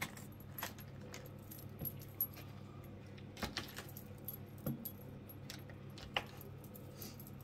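Light crinkling of a foil butter wrapper and a few scattered sharp clicks as butter is pieced into the stainless-steel bowl of a Thermomix, over a faint steady low hum.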